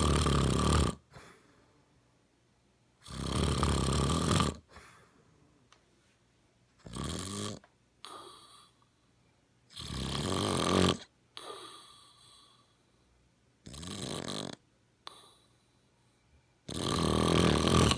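A man snoring in regular cycles: six loud snores, roughly every three seconds, each followed by a shorter, fainter breath.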